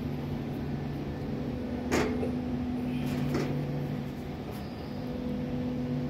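Carrier 30XA air-cooled screw chiller running, a steady machine hum with a few fixed tones, broken by a brief click about two seconds in and a fainter one a second later.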